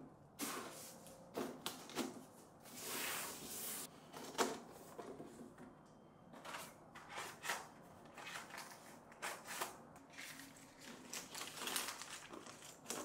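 Woven seagrass storage baskets being handled on a table: light knocks as baskets and lids are set down and moved, with crackling rustles of the woven seagrass, one longer rustle about three seconds in.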